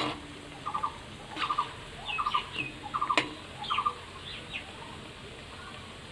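Birds chirping: repeated short calls, some in quick triplets and some falling in pitch, over the steady faint sizzle of pastries deep-frying in oil. A utensil knocks once against the pan about three seconds in.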